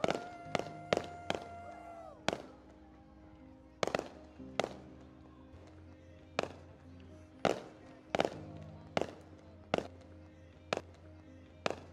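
Aerial firework shells bursting in a string of sharp bangs, roughly one a second, over music with long held notes.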